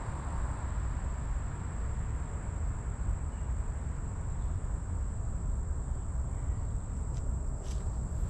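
Steady high-pitched chorus of insects, likely crickets, droning without a break. Under it runs a low rumbling noise on the microphone, and there are a few faint clicks near the end.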